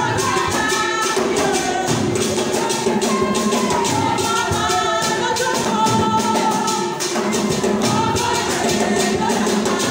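Music with singing over a steady, fast percussion beat.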